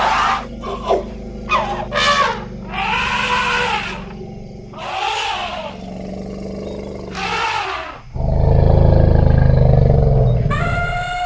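Elephants calling: a series of short trumpeting calls, each rising then falling in pitch, about seven in the first eight seconds. Then comes a loud, deep call lasting about two seconds, and a high, drawn-out call starts near the end.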